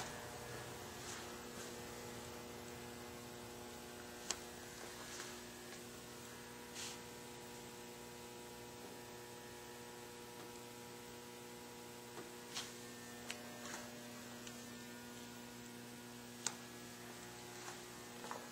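Steady electrical mains hum, a low buzzing tone with its overtones, with a few faint clicks scattered through it.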